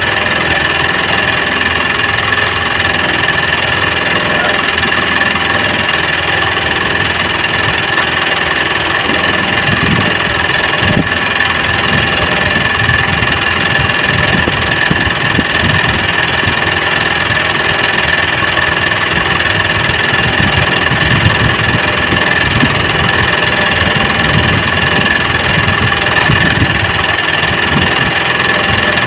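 Small engine of a motorised outrigger fishing boat idling steadily and loudly close by.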